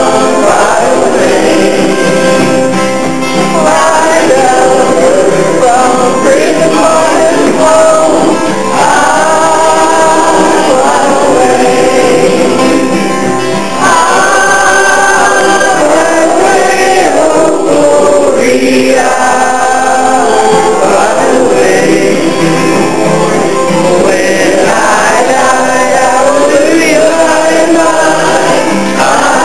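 Gospel song sung by male voices, the singing steady and loud throughout.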